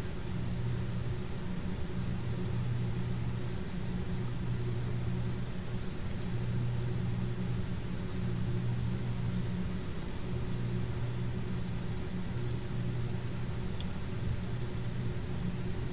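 A steady low hum over a faint hiss.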